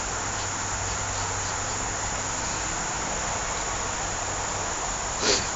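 Steady, even insect buzzing, like crickets, with one short sharp sound near the end.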